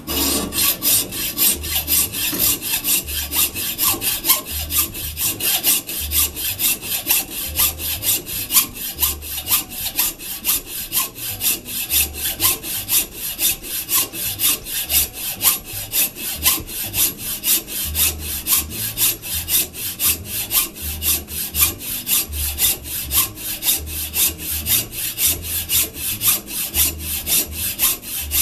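Hand hacksaw cutting through a metal shaft with steady, even back-and-forth strokes, the old drill shaft being cut off to free the bevel gear.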